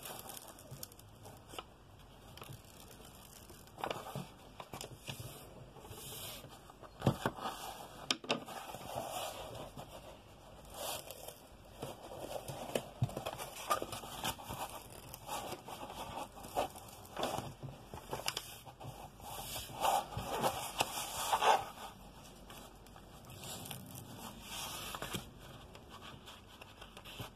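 Protective release paper being peeled up from the extremely sticky glue of a diamond painting canvas, with the canvas sheet crinkling as it is bent back: irregular crackles, scrapes and tearing rustles, with louder bursts about seven seconds in and again around twenty seconds.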